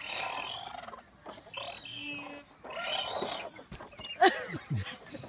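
Playground swing creaking and squealing with each back-and-forth, about every one and a half seconds, then a louder, sharper squeal about four seconds in that falls in pitch.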